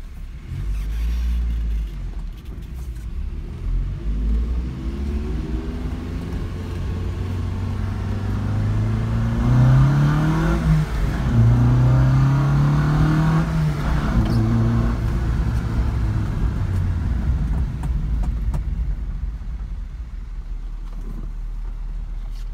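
1972 Lancia Fulvia's narrow-angle V4 engine heard from inside the cabin while driving: the revs climb, drop at a gear change, climb again, then settle lower into steady running.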